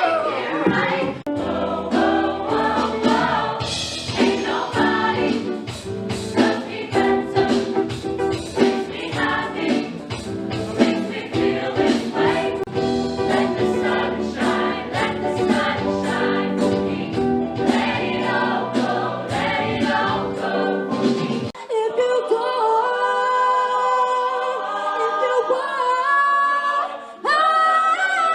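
Show choir singing in harmony over a steady beat and bass line. About 21 seconds in, the beat and bass drop out and the voices carry on in sustained, higher harmonies.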